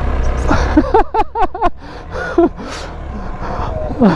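A person's voice making a quick run of about five short rising-and-falling sounds about a second in, then a few more brief vocal sounds, a falling one near the end the loudest. Under it, the low steady running of a Hero XPulse single-cylinder motorcycle engine.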